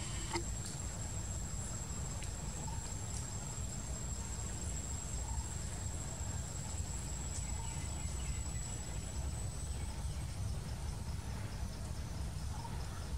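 An insect's steady, high-pitched drone: one thin, unbroken tone that fades out near the end, over a steady low rumble.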